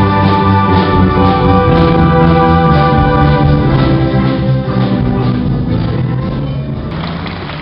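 Children's band playing a piece on electronic keyboards with percussion: sustained, organ-like held chords that fade out over the last few seconds.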